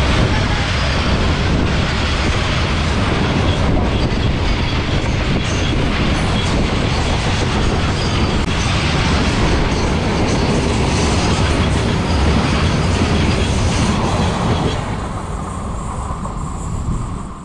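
Freight train of covered box wagons rolling past close by: a loud, steady rumble of wheels on rails that drops off about fifteen seconds in as the wagons go by.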